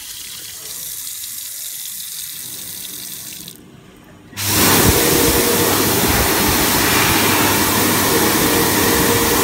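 Dyson Airblade Tap at a washbasin: water runs from the spout onto a hand and stops after about three and a half seconds. About four seconds in, the hand dryer in its side arms starts up with a much louder, steady rush of air and a steady tone under it.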